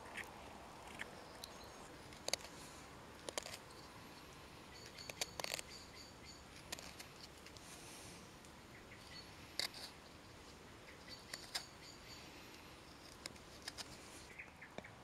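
Knife whittling a wooden spoon: scattered faint, short cuts and scrapes of the blade through the wood at irregular intervals, with a few brief, faint high bird chirps.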